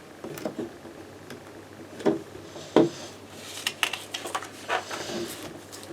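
Plastic Lego bricks clicking and clattering as they are picked up and pressed together: irregular sharp clicks, the loudest about half a second, two seconds and three seconds in.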